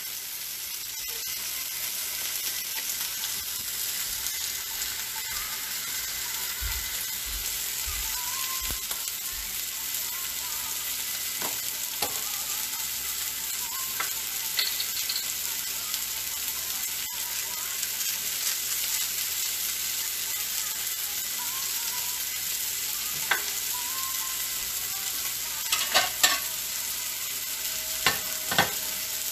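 Steaks, onions and asparagus sizzling steadily on a hot griddle pan, with a few short knocks near the end.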